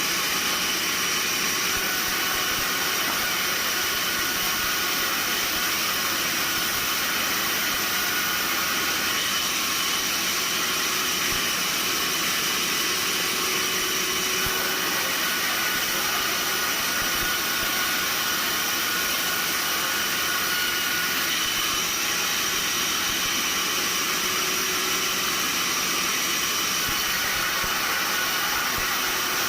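Sawmill machinery running steadily: a continuous hiss with faint high whines, unchanging throughout.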